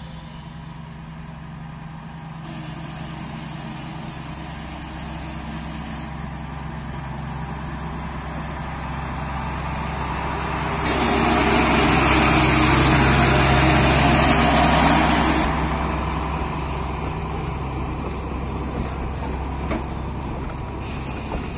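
Narrow-gauge diesel locomotive hauling a passenger train close past: a steady engine note builds up, is loudest for a few seconds past the middle as the locomotive goes by, then eases off as the coaches roll past.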